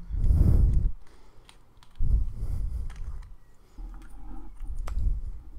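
Small clicks and dull low knocks as an e-pipe is handled and its battery fitted into the battery compartment, in three short spells of fiddling.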